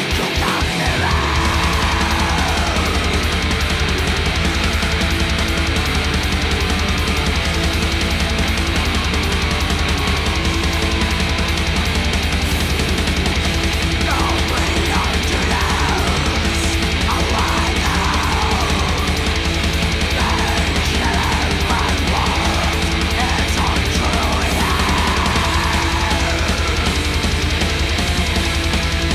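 Heavy metal music: distorted electric guitars over a drum kit, loud and unbroken.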